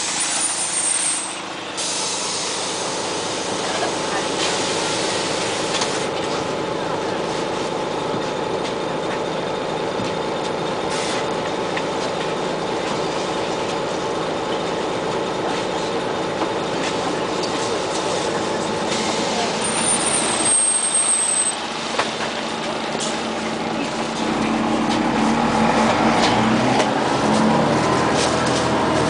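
Inside a Scania CN94UA OmniCity articulated city bus: a steady engine and cabin drone, with a short high air squeal at the start and again about two-thirds of the way through. Near the end the engine note rises as the bus accelerates.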